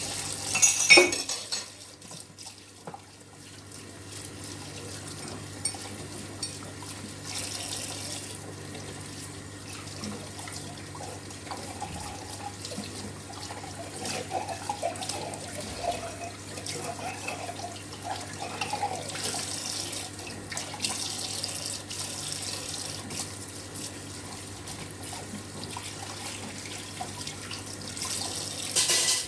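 Water running from a kitchen tap into a sink while dishes are washed, with occasional light clinks. The water is briefly louder about a second in and again near the end.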